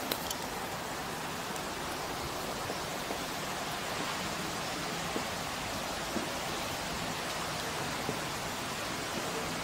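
Steady hiss of outdoor background noise, with a few faint clicks.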